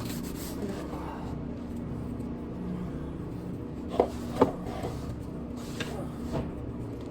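Hand tools knocking and clicking against metal under a car while working at the oil filter: two sharp knocks about four seconds in, then a few lighter clicks, over a steady low hum.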